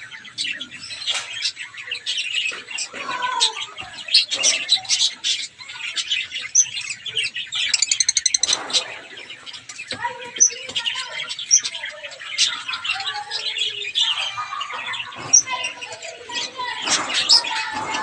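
Caged finches chirping busily, with short high calls several times a second and a quick rattling trill about eight seconds in.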